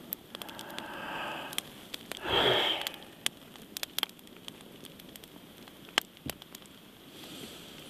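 Campfire crackling, with sharp pops scattered throughout. A man's breathing is heard: a soft breath about half a second in, then a loud sniff about two seconds in.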